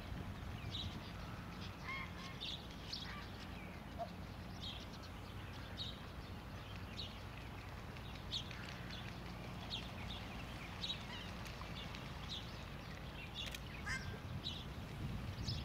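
Wild wetland birds calling: many short, high calls scattered throughout, some higher-pitched and some lower and curving, over a steady low rumble.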